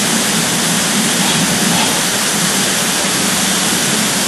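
Shasui Falls waterfall pouring, a loud, steady rush of falling water.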